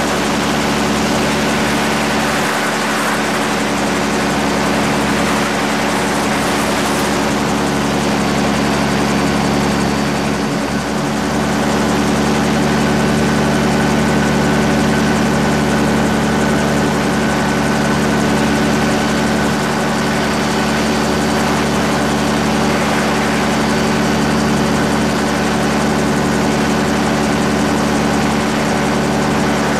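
Rotax 532 two-stroke twin engine and propeller of an AC-4 gyrocopter running steadily in flight, a constant drone under a steady rush of air noise. It gets a little louder from about twelve seconds in.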